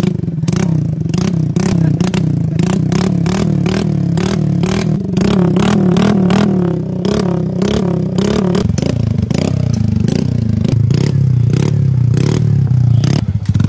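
TVS Ntorq scooter's single-cylinder four-stroke engine running through an aftermarket slip-on silencer held at the end of its bend pipe, a steady exhaust drone with a rapid clattering tick about three times a second. The exhaust tone changes about nine seconds in as a different silencer is tried.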